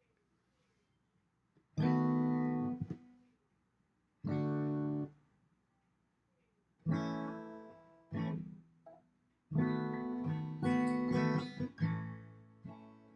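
Acoustic guitar chords strummed one at a time after a short pause. The first two chords are cut short, then several more come closer together and ring on.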